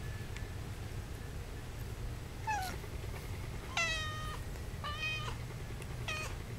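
Young kittens, about two and a half weeks old, mewing: four high, thin mews starting about two and a half seconds in. The second, around four seconds in, is the longest. A low steady hum lies underneath.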